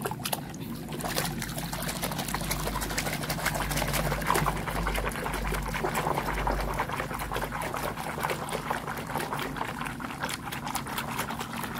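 Soapy water sloshing and splashing in a plastic basin as a hand scrubs a toy underwater, a continuous irregular patter of small splashes.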